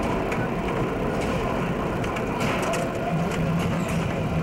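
Subway train running through the tunnel: a steady rumble of wheels on rail with scattered clicks and rattles, and a low hum that comes in about three seconds in.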